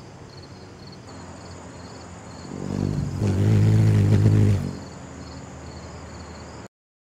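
Ruby-throated hummingbird's wings humming as it hovers close at a nectar feeder: a low pitched hum that swells over about a second, holds loud for about a second and a half, then drops away. The sound cuts off suddenly near the end.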